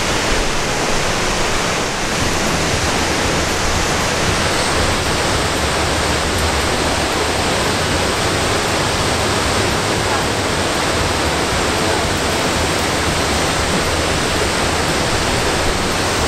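Waterfall on Butte Creek rushing steadily into its plunge pool: an even, unbroken water noise with no change in level.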